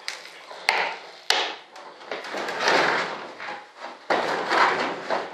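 Composite wing skin being pried off its mold: a few sharp snaps in the first second and a half as the part releases, then longer scraping and rustling as a plastic wedge is worked along the seam between part and mold.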